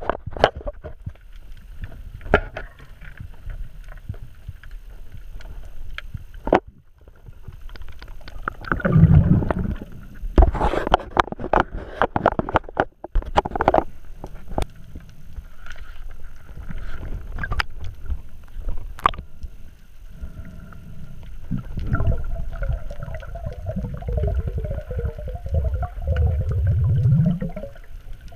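Water sloshing and bubbling around a GoPro camera in use while snorkelling and diving, with scattered clicks and knocks and irregular low surges. Near the end comes a longer bubbling stretch.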